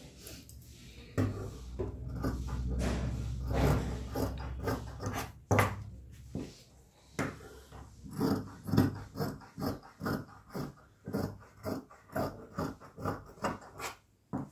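Large tailor's shears cutting through cotton lining fabric on a tabletop: a run of crisp snips, about two or three a second through the second half, with a longer rustle of fabric in the first few seconds.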